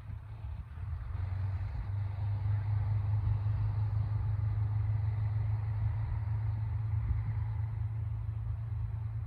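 Diesel railcar engine running as the train moves, a steady low drone that swells about a second in and holds.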